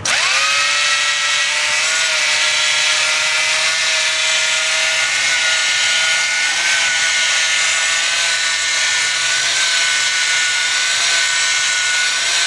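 Motor-driven power tool that starts abruptly and runs steadily, with a high whine over a hiss.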